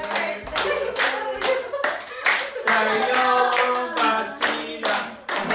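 A small group clapping in time, about two claps a second, while people sing along.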